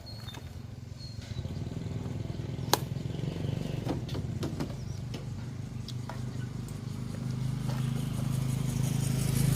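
Motorcycle engine running, growing louder near the end, with a few sharp clicks, one standing out a few seconds in.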